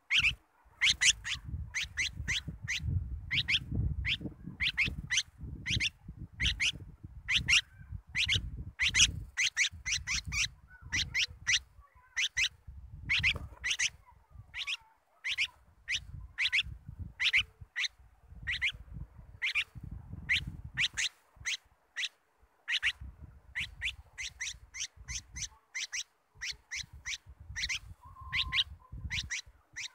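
A bulbul calling: a long series of short, sharp, high chirps, two or three a second with brief pauses, over an uneven low rumble.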